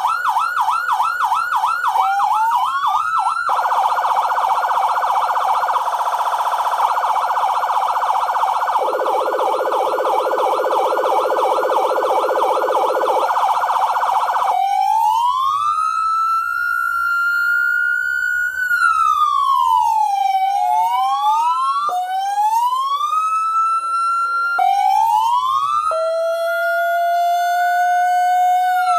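X5 400-watt dual-tone electronic siren sounding through its speaker and switching between tones. It opens with a fast yelp, and from about four seconds in two tones sound at once. About fifteen seconds in it changes to a slow wail rising and falling, and a second lower wail joins near the end.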